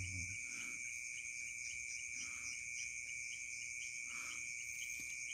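Night insect chorus: crickets trilling steadily at several high pitches, one of them pulsing in a fast, even rhythm.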